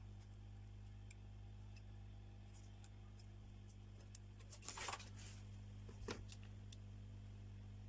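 Faint handling noises, light clicks with a short scrape about five seconds in and another about six seconds in, over a steady low electrical hum.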